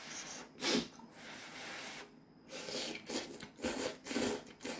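Ramyeon noodles slurped in a run of short sucking bursts, coming quicker one after another in the second half.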